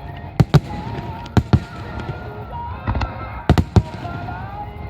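Aerial fireworks shells bursting: about eight sharp bangs, coming in quick pairs and clusters, over a low rumble.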